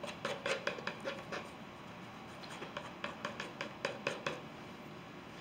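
Palette knife scraping oil paint onto a canvas in short, quick strokes, with a pause of about a second between two runs of strokes.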